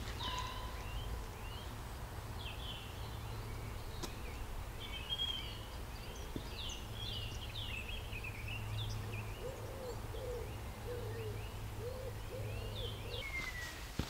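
Woodland birdsong: small birds sing quick high chirps and trills throughout. In the last few seconds a pigeon coos a low phrase of about six notes. A steady low rumble runs underneath.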